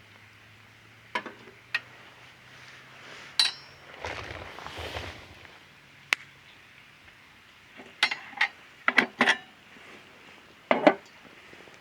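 Metal camp cookware and utensils being handled: a series of short, sharp clinks and knocks, one with a brief metallic ring about three and a half seconds in, and a rustle around the middle.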